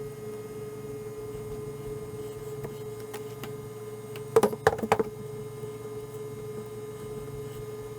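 A steady electrical hum, with a quick cluster of four or five sharp clicks about four and a half seconds in.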